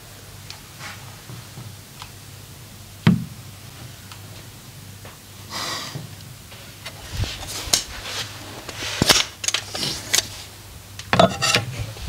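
Massage handling sounds from hands working on a body: a single sharp knock about three seconds in, then scattered taps, clicks and short brushing rubs, bunched around the last few seconds.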